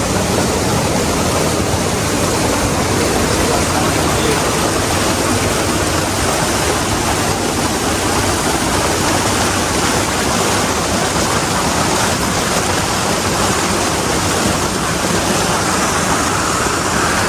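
River rapids rushing loudly and steadily.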